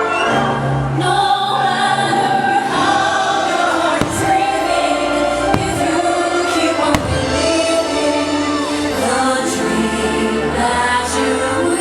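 Fireworks show music with a choir singing over it, and a few sharp firework bangs about four, five and a half and seven seconds in.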